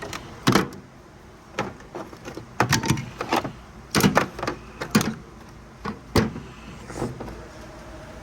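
Metal hand tools clinking and knocking against a steel toolbox drawer as they are picked up and set down, a dozen or so irregular sharp knocks with handling noise between.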